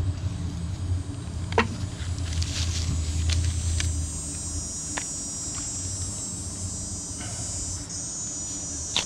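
A low engine hum, louder for the first four seconds and then fading, under a steady high insect drone, with a few sharp knocks scattered through.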